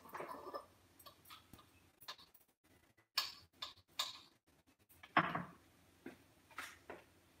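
Scattered light clicks and knocks of kitchen items being handled and set down on the counter, about ten in all at irregular intervals, the strongest about five seconds in; among them a small glass jar being put down.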